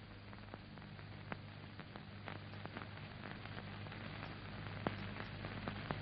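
Soundtrack noise of an old worn film print: a faint steady low hum and hiss with scattered crackles and clicks.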